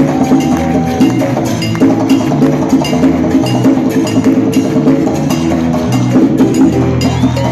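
Live salsa band playing an upbeat salsa number, with percussion striking a steady, quick beat over the bass and sustained pitched instruments.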